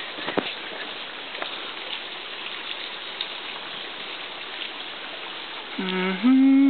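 Steady rush of running water with a few light clicks. About six seconds in, a person's voice starts humming a tune, louder than the water.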